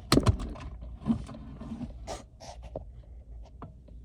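Low rumble of an LIRR M7 electric train moving slowly, with irregular clicks and scrapes over it.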